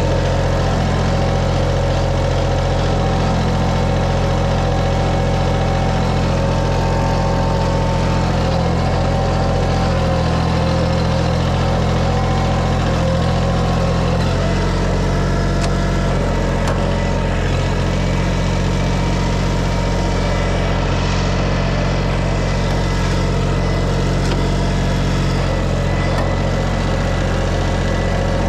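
An engine running steadily under constant load, its low pitch shifting slightly about halfway through.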